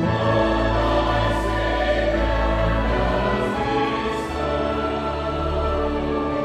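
Mixed church choir singing a hymn arrangement with a string orchestra of violins and cellos, in held chords over sustained low bass notes.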